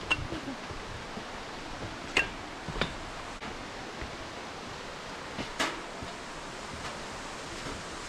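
Steady rush of distant flowing water from a stream or waterfall. Four sharp clicks stand out: one at the start, two close together about two to three seconds in, and one more about five and a half seconds in.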